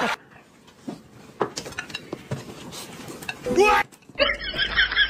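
Chopsticks and dishes clinking lightly at a dinner table. About three and a half seconds in comes a short, loud pitched glide, then a rapid run of chirping notes.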